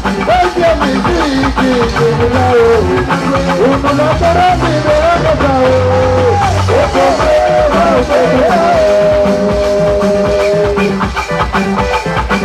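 Upbeat band music: a bending lead melody, held on long notes in the second half, over bass, guitar and a steady beat.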